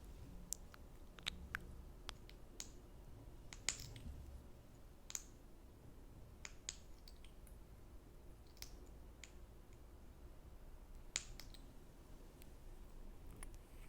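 Close-miked sticky ASMR mouth sounds: soft wet clicks and lip smacks, a dozen or so at irregular intervals, with the sharpest ones about four seconds in and near eleven seconds.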